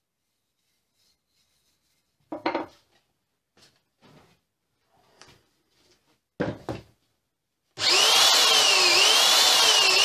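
A few short wooden knocks and clatters, then about three-quarters of the way in a Bosch belt sander starts up and runs loudly, its whine wavering up and down.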